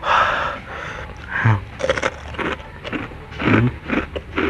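Close-miked mouth sounds of someone eating spicy instant noodles: chewing with sharp wet clicks, a breathy rush of air at the start, and a couple of short low hums.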